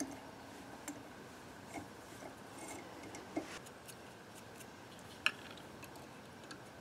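Faint, scattered small metallic clicks and light scraping from a hand tap being turned in a tap wrench, cutting 4-40 threads in thin sheet steel; one sharper click about five seconds in.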